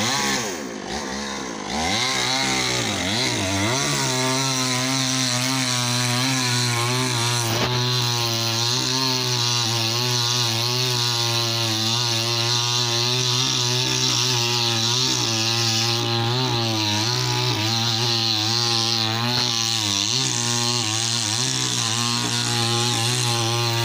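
Chainsaw revving up, then running steadily at high speed under load as it cuts low at the base of a tree trunk, the pitch wavering slightly with the cut.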